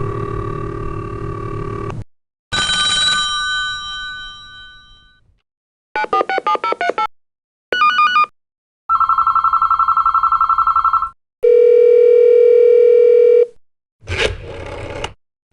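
A string of separate telephone sound effects, each followed by a short silence: a steady tone, a ringing tone that fades away over a couple of seconds, a rapid electronic trill, a few short beeps, then a steady high tone and a steady lower tone. A noisy scraping sound starts near the end.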